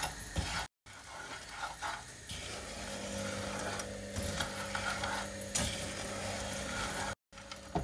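A wooden spoon stirring almonds and hazelnuts in a nonstick frying pan, scraping and rattling through sugar that has crystallized to a dry, sandy coating. From about two seconds in there is a steady low hum underneath. The audio cuts out briefly twice.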